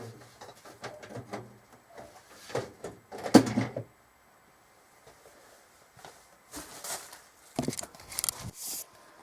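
Clicks, knocks and scraping from parts being handled and fitted into a computer case, with one louder knock about three and a half seconds in.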